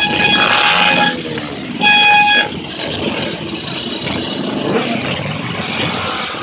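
A car horn sounds twice on one steady note: a blast about a second long, then a shorter, louder one about two seconds in. Vehicle engines run underneath.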